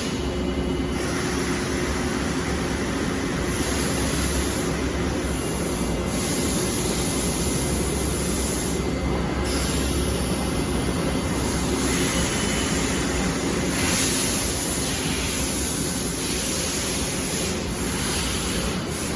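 Steady mechanical running noise of a gantry robot and its machinery, a constant hum with a hiss that rises and falls every few seconds.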